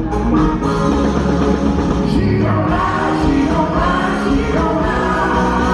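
Live band playing a song with singing, a steady bass and held chords under it; sung lines with vibrato come in about halfway through.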